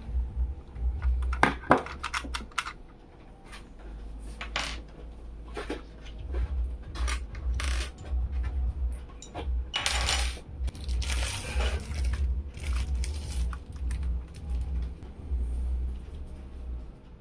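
Small metallic clinks, clicks and brief rustles of computer parts and packaging being handled, heaviest about a second in and again around the middle, over a low pulsing rumble.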